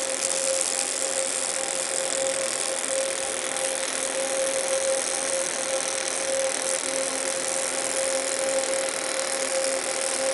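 Panasonic Active TAWERS robot's CO2 arc weld at about 180 A with active wire feed control, running steadily: an even crackling hiss with a steady mid-pitched hum under it.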